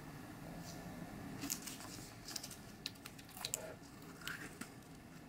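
Thin plastic film lid being peeled back off a small plastic cup, crinkling and crackling in a run of sharp crackles that starts about a second and a half in and lasts around three seconds.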